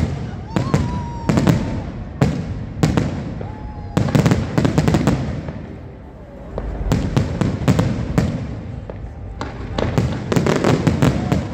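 Aerial firework shells bursting in a display: sharp bangs coming singly and in rapid volleys, with the densest volleys about four seconds in and again near the end.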